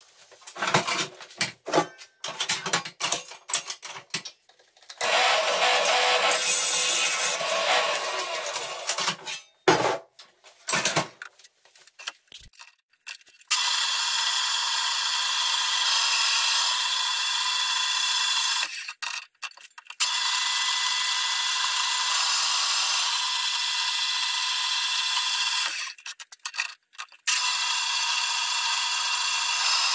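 Horizontal metal-cutting bandsaw running steadily as its blade cuts through square steel tube, a ringing, high-pitched sound that stops briefly twice. Before it, in the first dozen seconds, irregular knocks and a few seconds of scraping.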